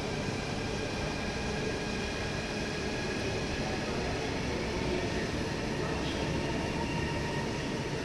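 N700-series Shinkansen bullet train passing through a station at speed: a steady rushing noise of wheels on rail and air, with faint high tones held over it.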